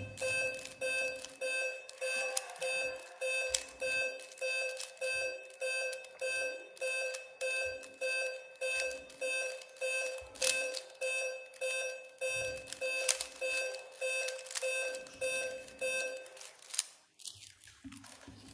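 Rapid, regular electronic beeps from a laptop's flash mental-arithmetic drill, nearly two a second, one for each number flashed on screen. They stop about sixteen seconds in, when the sequence ends.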